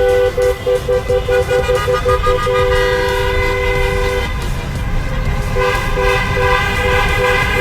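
A two-note car horn honking in celebration: a quick run of short toots, a long blast, then more short toots near the end, over road noise from a moving car.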